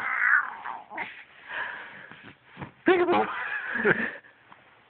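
A 24-week-old baby vocalizing: a short, high squeal at the start and a longer pitched, wavering coo about three seconds in, with quiet gaps between.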